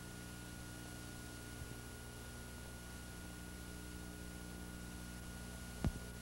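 Steady hum and hiss from a blank stretch of videotape, with a small click about a second and a half in and a short, louder pop near the end.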